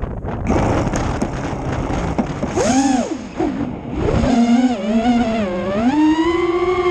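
Racing drone's motors whining, the pitch dipping and climbing with the throttle and settling higher near the end. The whine comes in about two and a half seconds in, after a stretch of heavy wind buffeting on the microphone.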